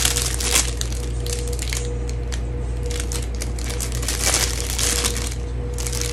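Packaging crinkling and rustling as a soap bar is unwrapped by hand, in irregular bursts that are busiest at the start and again about four to five seconds in, over a steady low hum.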